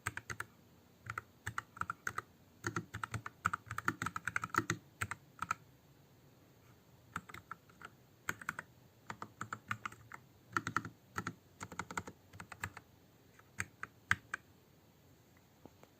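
Typing on a Nuphy Air75 low-profile mechanical keyboard with Gateron Brown tactile switches and keycaps fitted: quick, irregular keystroke clacks in bursts, with a short pause about six seconds in.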